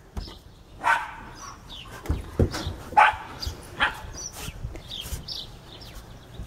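A dog barking several times in short sharp barks, with a couple of low thumps a little after two seconds.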